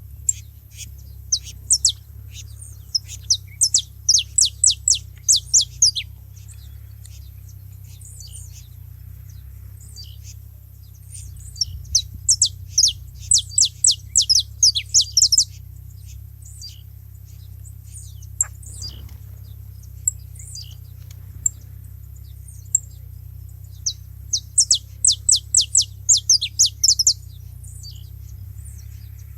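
Saffron finches calling: rapid runs of sharp, high, falling chirps in three bursts of a few seconds each. A steady low hum lies underneath.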